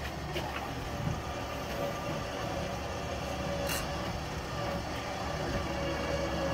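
Truck engine idling steadily, with a couple of light clicks about half a second and nearly four seconds in.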